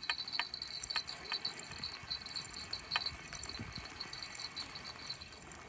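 Fishing reel being cranked to bring in line after a bite: light, irregular clicking and rattling of the reel's mechanism.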